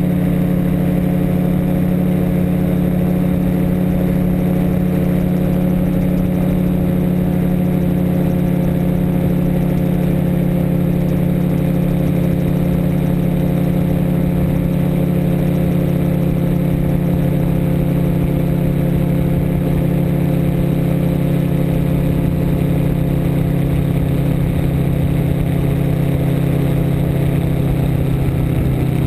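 Gyroplane's engine and pusher propeller running at a steady power setting in flight, heard close up from a camera mounted on the aircraft.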